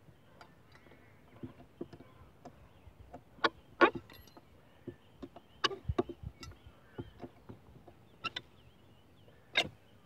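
Steel claw bar prying nails out of old treated-timber posts: irregular sharp clinks and knocks of metal on nail and wood, a handful of them, the loudest near the middle and just before the end.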